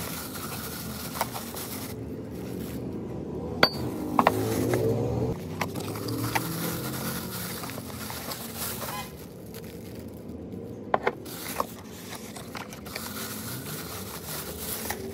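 Ceramic mugs being unpacked from cardboard boxes: plastic wrapping crinkling and cardboard rustling and scraping, with a few sharp clinks.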